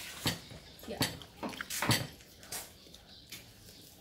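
Spoons and plates clinking and knocking on a metal tabletop during a meal. There are several sharp knocks in the first two seconds, then fewer, fainter ones.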